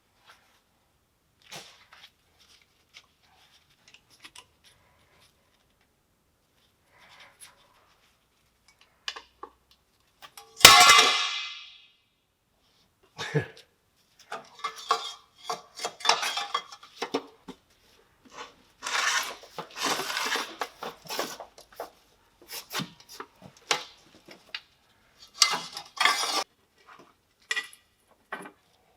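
Metal parts and hand tools clinking and clanking as a milling machine is taken apart. The first stretch has only a few light clicks; about a third of the way in comes one loud ringing metallic clang, then a busy run of clanks and scrapes.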